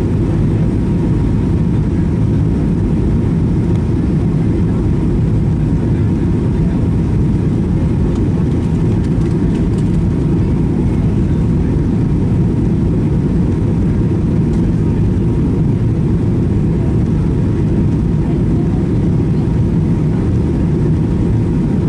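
Steady cabin noise inside a Boeing 737-800 on approach: the low, even rumble of airflow and its CFM56 turbofan engines, with a faint steady high tone running through it.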